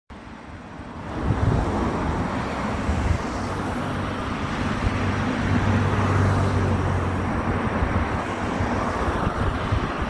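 Steady low rumble of vehicle noise with a deep hum, swelling about a second in and then holding level.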